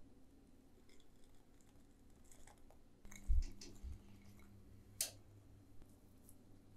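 Quiet food-prep handling: raisins scattered from a plastic measuring cup onto rolled-out dough on a wooden board, giving soft scattered taps and clicks. A dull thump comes a little after three seconds and a sharp click about five seconds in.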